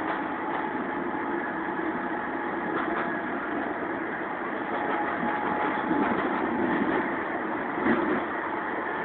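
Alsthom TFS tram running, a steady hum with faint whining tones, swelling a little about six seconds in and with a brief knock near the end.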